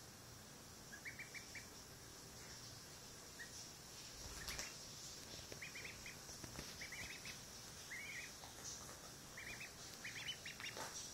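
Duckling peeping: short runs of three to five quick high peeps, coming every second or so from about five seconds in. There is a soft knock or rustle about four and a half seconds in.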